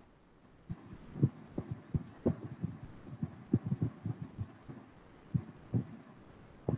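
Irregular muffled taps and thumps, a couple to several a second, from a computer being worked at a desk: mouse clicks and handling picked up through the desk by the microphone.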